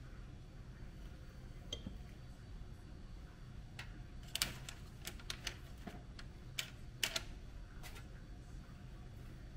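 A quick run of light, irregular clicks and taps from hard objects, about a dozen over some four seconds around the middle, over a low steady hum.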